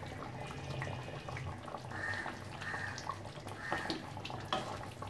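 Thick fish curry gravy bubbling at a simmer in a wok, with a spatula stirring through it and scattered small pops and clicks.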